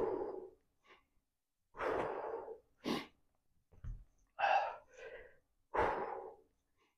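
A man's hard breaths out, about six short bursts roughly a second or so apart, some with a little voice in them: the effort of each resistance-band shoulder press.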